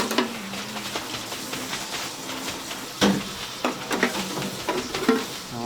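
Food sizzling on a hot cooking surface, a steady hiss with several sharp clicks and knocks of utensils against metal.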